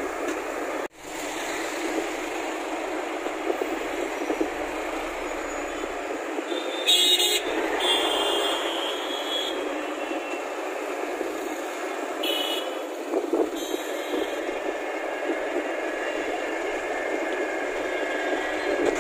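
City road traffic heard from a moving bus: steady engine and road noise, with several short vehicle horn honks, the first about seven seconds in and more around twelve to fourteen seconds.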